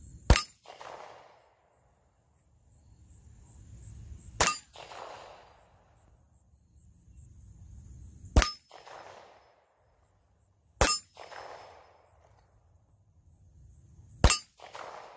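Five handgun shots, each fired from the draw, spaced about three to four seconds apart. Each shot is followed by the ringing clang of a hit steel target.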